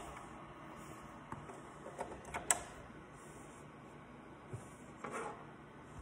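Speaker cables and their connectors being handled and plugged in at the back of an amplifier rack: a few faint clicks and knocks, the sharpest about two and a half seconds in and another softer one near the end, over a steady low background hum.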